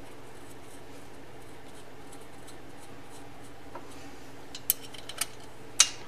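A few sharp metallic clicks and taps in the second half, the loudest near the end, from a small bolt and hand tools being handled on a motorcycle engine's cylinder head, over a steady low hum.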